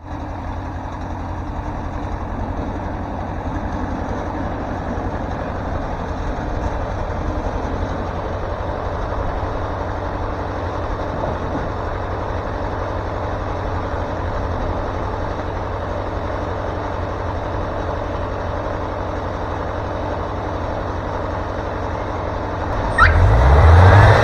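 Wood-Mizer LT40 Super Hydraulic sawmill's engine running steadily. Near the end it revs up and gets louder, with a short rising whine.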